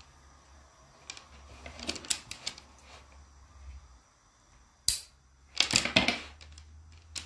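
Small wooden tiles of a cord-strung trivet clicking and clattering against each other and the tabletop as it is handled. A run of light clicks comes first, then a sharp knock about five seconds in and the loudest burst of clatter just after it.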